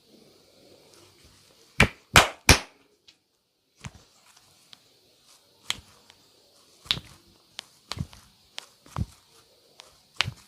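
Hands slapping and striking the body in a massage: three loud smacks in quick succession about two seconds in, then scattered lighter slaps and taps every second or so.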